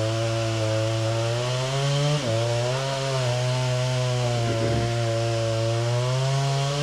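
Chainsaw engine running at steady high revs under load, cutting into a tree trunk during felling. Its pitch dips briefly about two seconds in and again near the end as the cut loads it.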